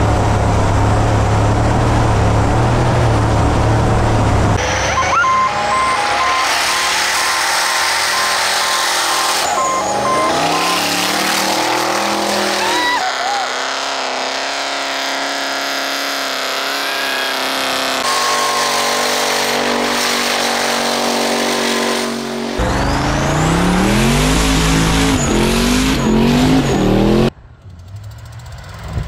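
A string of short clips of off-road truck engines running and revving hard, their pitch sweeping up and down, with one engine climbing in several steps near the end. The sound cuts between clips abruptly and drops away sharply near the end.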